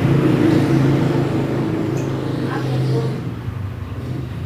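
Steady low hum of a running engine, continuing without change under the room's activity.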